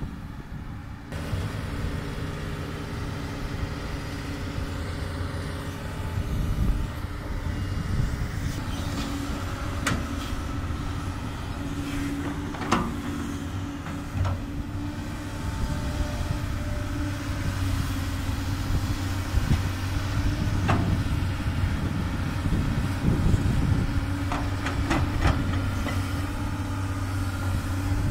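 Doosan DX200 excavator's diesel engine running steadily while it works, getting louder about a second in, with a few sharp knocks here and there.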